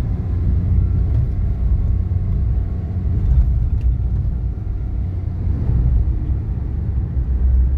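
A car driving on the road: a steady low rumble of engine and tyre noise.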